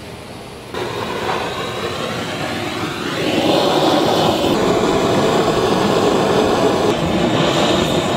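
Handheld butane canister blowtorch burning with a steady rushing hiss of flame. It comes in abruptly under a second in and grows louder about three seconds in.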